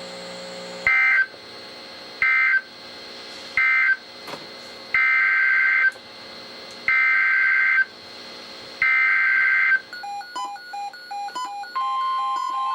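NOAA Weather Radio SAME data bursts, a harsh two-tone digital squawk: three short end-of-message bursts, then three longer header bursts for the next alert. Rapid electronic alert beeps follow from a weather-alert receiver, and near the end the steady 1050 Hz warning alarm tone begins.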